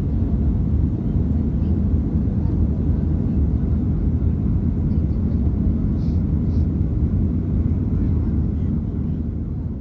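Jet airliner engines heard from the ground, a loud, steady, deep noise that begins to fade near the end.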